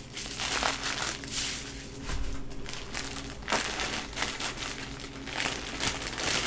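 Clear plastic bag holding black slate Go stones being handled and shifted, the plastic crinkling irregularly.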